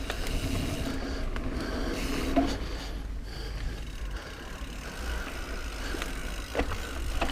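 Mountain bike rolling along a dirt trail: tyres on the ground and the bike's drivetrain rattling and ticking, with a few sharp clicks, over a low steady rumble.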